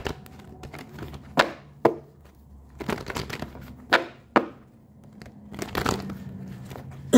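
A deck of tarot cards being shuffled by hand: a run of sharp card snaps and riffles, about eight of them spaced irregularly with short pauses between.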